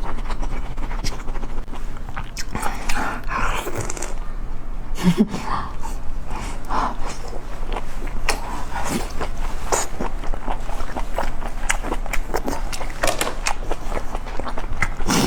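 Close-miked chewing and mouth sounds of someone eating seafood: many short, sharp, wet clicks with breaths now and then.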